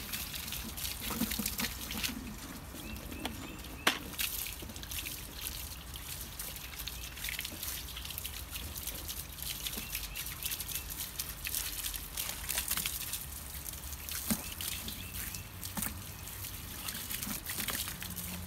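Garden hose spraying water onto a car wheel and tyre, the water splashing and trickling off onto wet concrete. A sharp click about four seconds in.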